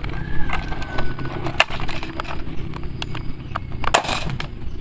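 Toy blaster being fired at a target: a run of light plastic clicks and rattles, with one louder sharp snap about four seconds in.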